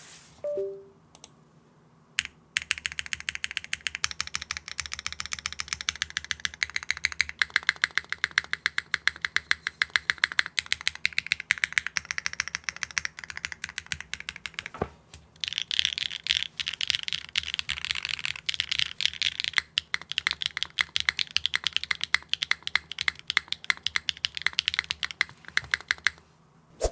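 Fast, continuous typing on a mechanical keyboard with factory-lubed Wingtree KM16 linear switches and GMK keycaps, in a Neo65 Core Plus case with no foams. The keystrokes start about two and a half seconds in and pause briefly about halfway through.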